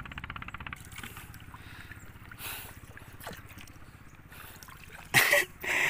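Water lapping and sloshing against the side of a small wooden fishing boat, with a few faint knocks. A brief loud noise comes near the end.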